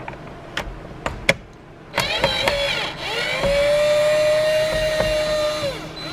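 A few light knocks, then a cordless power driver's motor spins up about two seconds in, runs steadily for a couple of seconds while working a dash fastener, and winds down near the end.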